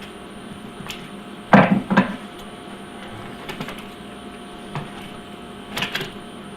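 Handling noise from pressing aluminized tape onto a vent pipe: a few short knocks and rustles, the loudest cluster about one and a half seconds in, over a faint steady hum.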